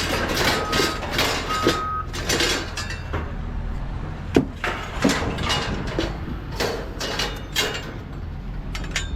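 Scrap metal clanking and banging in a string of separate knocks over the steady rumble of a running heavy vehicle engine. A reversing alarm beeps a couple of times in the first two seconds.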